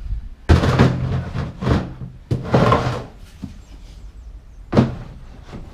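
Hard plastic ammo boxes being lifted out of a vehicle's load bay and set down: a clatter of knocks and scrapes over the first few seconds, then a single sharp knock near the end.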